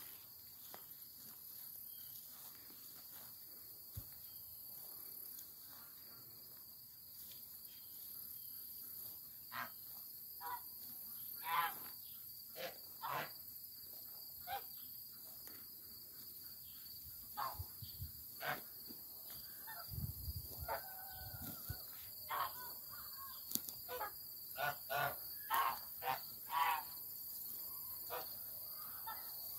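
Flock of domestic geese honking, single short calls scattered at first and coming more and more often toward the end, over a steady high drone of insects.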